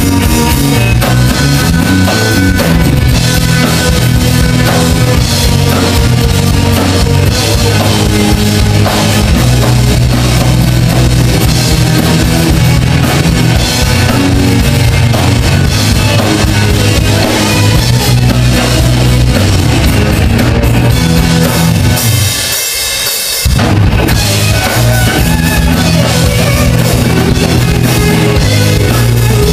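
Rock band playing live with no vocals: drum kit, electric and acoustic guitars and electric bass. About 22 seconds in, the bass and low drums drop out for about a second and a half, leaving only a bright high wash, before the full band comes back in.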